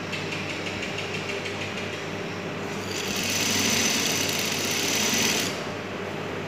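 Juki industrial sewing machine stitching down pleats in cotton fabric, its motor humming steadily. About three seconds in it runs faster and louder for roughly two and a half seconds, then drops back to a slower run.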